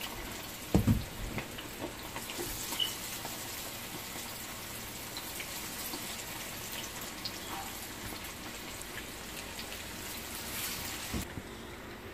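Chicken deep-frying in a pan of hot oil, sizzling steadily with small crackles and pops. A couple of loud thumps come about a second in, and the sizzle drops away sharply near the end.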